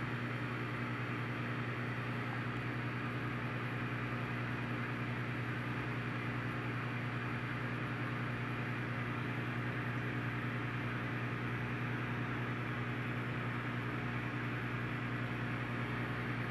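Steady low electrical hum with an even hiss over it, from running aquarium equipment.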